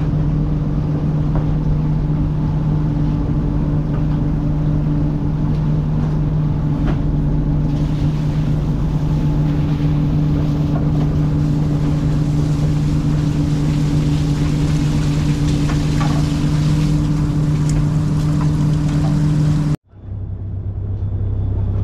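Fishing boat's engine running with a steady low hum and a few light knocks over it; near the end it cuts to a lower, deeper engine hum.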